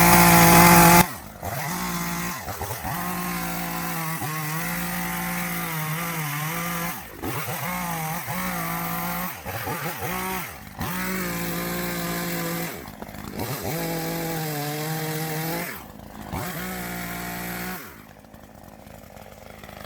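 Chainsaw engine cutting through wood, revving hard at first, then its pitch repeatedly dips as the chain loads up in the cut and recovers between cuts. The saw drops away about two seconds before the end.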